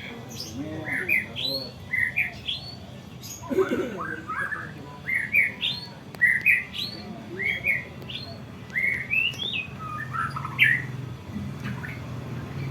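White-rumped shama (murai batu) singing: quick phrases of clear whistled notes, most of them sweeping upward, repeated again and again with short gaps, over a faint low hum.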